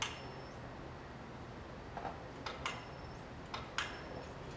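Quiet workshop with a few faint, scattered clicks and light knocks from the pneumatic lift tool and its handle controls as a transmission is lowered onto its rack, over a faint high-pitched whine that steps up in pitch a few times.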